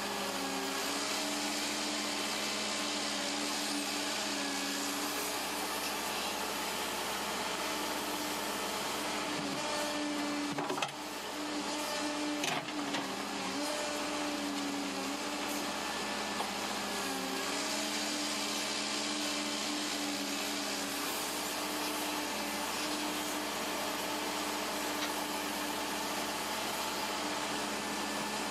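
Cat 309 CR mini excavator's C3.3B diesel engine running steadily at working speed while digging, its pitch sagging briefly a few times as the hydraulics take load. Two sharp knocks come near the middle, about a second and a half apart.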